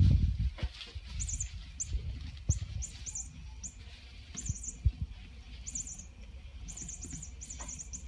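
Cats batting and mouthing an open wicker ball toy on a tile floor: scattered knocks and thumps of the toy and paws on the tiles, loudest at the start. Repeated short high-pitched chirps run alongside and come more often in the second half.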